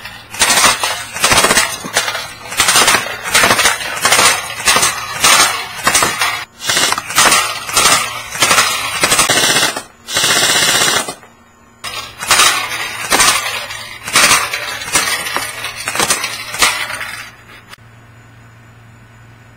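Electric airsoft rifle (Echo 1 Troy MFC) firing on full auto in a string of short bursts, with a longer burst about ten seconds in. The firing stops about 17 seconds in.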